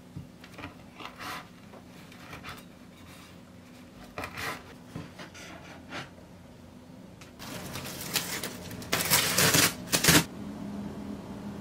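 Chef's knife chopping rosemary on a bamboo cutting board, a scattering of light irregular taps. From about seven seconds in, a louder crinkling rustle as plastic wrap is pulled off a glass baking dish, loudest near the end before stopping sharply.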